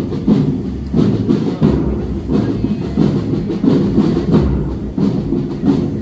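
Procession drum corps playing, with a steady marching rhythm of strong beats about three every two seconds.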